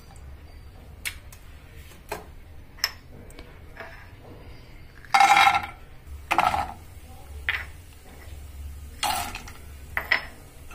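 Nuts being tipped into a nonstick frying pan of ghee, with spoon and spatula clinking and knocking on the pan. The loudest clatter comes about five seconds in and another about nine seconds in.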